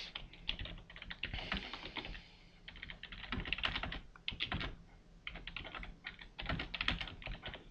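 Typing on a computer keyboard: quick runs of key clicks in uneven bursts, with a couple of short pauses.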